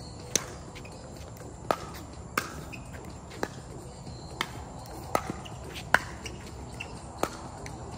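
A pickleball rally: paddles hitting the hard plastic ball back and forth, about eight sharp pops at roughly one a second, the loudest about six seconds in.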